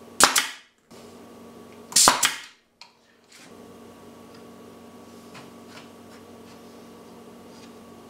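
Pneumatic nail gun firing twice into wood about two seconds apart, each shot a sharp crack with a short fading tail, as it drives nails into a glued joint.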